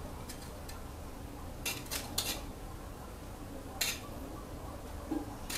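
A few light clinks on a ceramic plate as pieces of fried pork belly are laid on it: three close together about two seconds in, and one more a little before four seconds.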